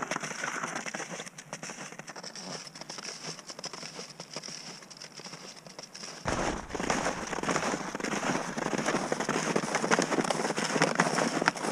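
Snowshoes crunching step after step on packed snow, a dense crackle of small clicks. About six seconds in it becomes louder and closer.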